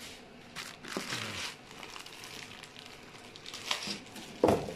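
Plastic packaging crinkling and rustling as it is handled, in several short bursts, with a louder bump near the end.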